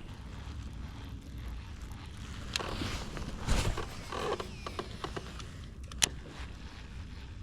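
Scattered clicks and knocks of gear being handled, with one sharp click about six seconds in, over a steady low rumble.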